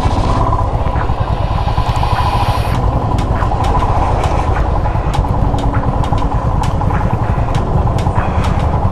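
Motorcycle engines running steadily while riding slowly along a rough gravel lane.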